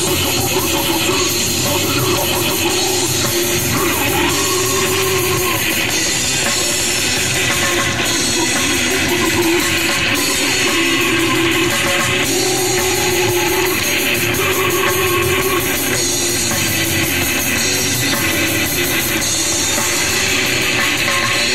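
Heavy metal band playing live and loud: distorted electric guitars over a drum kit, a dense, unbroken wall of sound.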